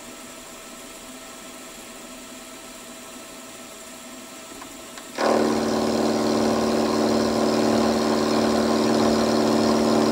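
Milling machine motor switching on suddenly about five seconds in and running at a steady pitch, a hum with a clear tone and overtones, over a faint steady background hum before it.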